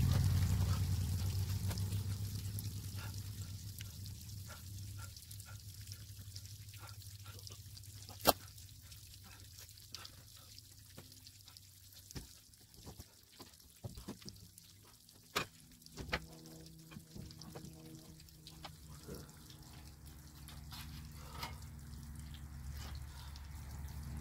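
Water pouring off a heavy, water-filled tarp, fading over the first few seconds into a trickle, then scattered drips and a few sharp knocks.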